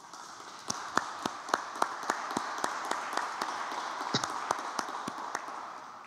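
A few people applauding over a video call: a steady patter of clapping with sharper individual claps standing out. It starts suddenly and fades away near the end.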